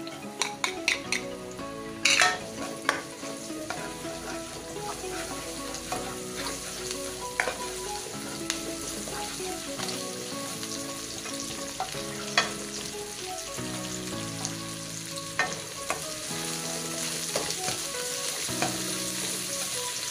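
Minced garlic and sliced onion sizzling in hot oil in a nonstick wok, stirred with a metal spatula that scrapes and knocks against the pan. The knocks come at irregular intervals, the sharpest about two seconds in and about twelve seconds in.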